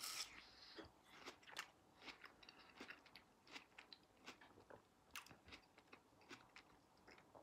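A person biting into a piece of melon and chewing it: a bite at the start, then faint, irregular crunching clicks, a few each second.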